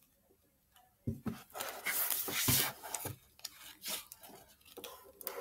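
Pages of a hardcover picture book being turned and the book handled: paper rustling with a couple of soft knocks, starting about a second in.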